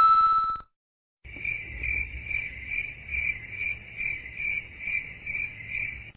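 Crickets chirping, the stock sound effect used for an awkward silence: an even run of chirps about two and a half a second, starting about a second in. Before it, a short pitched tone fades out just after the start.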